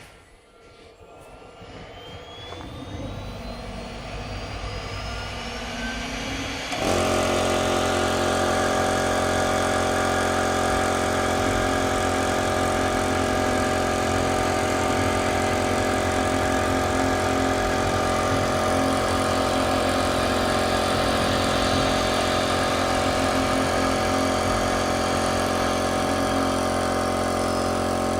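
Four-axis woodworking CNC router: a whine rises steadily in pitch for about seven seconds, then a loud, steady machine noise with several constant tones starts suddenly and runs on evenly.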